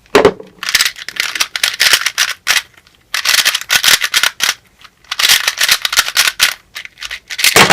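Plastic 3x3 speedcube being turned fast: three spells of rapid clicking and rattling of the pieces, with short pauses between. The cube is freshly assembled from a kit and loosely tensioned.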